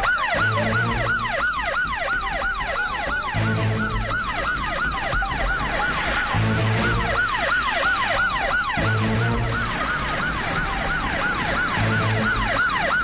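Ambulance siren on yelp, its pitch rising and falling about four times a second, over background music with a low pulse every few seconds.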